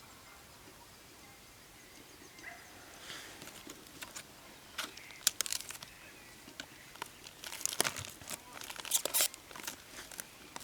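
Close rustling and crinkling of something being handled, with irregular sharp clicks and snaps. It starts about three seconds in and grows busier toward the end.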